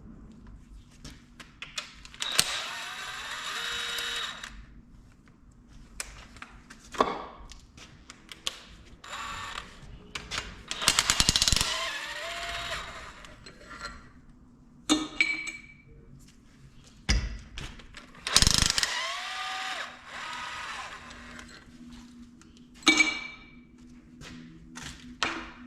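Hand tools working on steel engine parts during a diesel engine tear-down: a ratchet clicking, metal parts clinking and ringing, and a few scraping, rattling stretches of a second or two.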